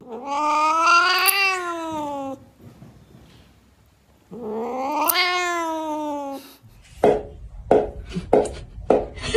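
Cat meowing while having its claws clipped: two long, drawn-out meows, each rising then falling in pitch. Near the end comes a quick run of short, sharp sounds, about two a second.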